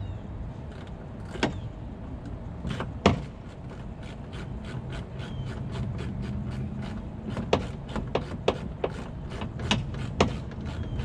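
Scattered clicks and knocks from a Volvo VNL semi's headlight housing being worked loose by hand. A few sharp ones come about one and a half and three seconds in, and a quicker string of them comes past the middle. A low steady hum runs underneath.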